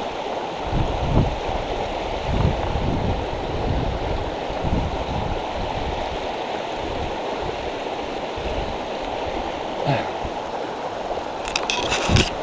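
Steady rushing of a fast, rocky trout-stream riffle. There is some low buffeting on the microphone in the first few seconds, and a short run of sharp clicks just before the end.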